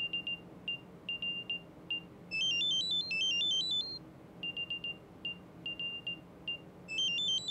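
Samsung Galaxy Buds FE earbuds sounding their Find My Earbuds locator alert: clusters of short high beeps alternate with a fast, stepped run of tones climbing in pitch, and the cycle repeats. The reviewer finds this locator sound very quiet, too quiet to pinpoint the earbuds easily.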